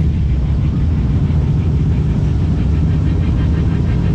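A vehicle engine running steadily: a loud, even, low drone with no breaks.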